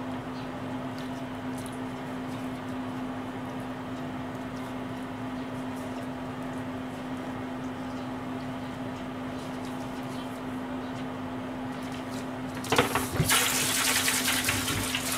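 Steady low mechanical hum with one fixed tone, then near the end a kitchen tap is turned on and water runs hard into the sink, much louder than the hum.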